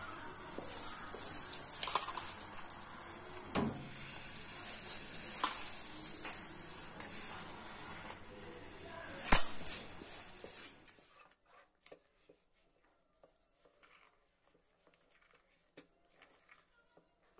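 Kitchen handling sounds as jaggery is mixed into the rice in a steel pot: a few sharp clinks and knocks against the pot over a low steady hiss, the loudest about nine seconds in. After about eleven seconds it drops to near silence with only faint ticks.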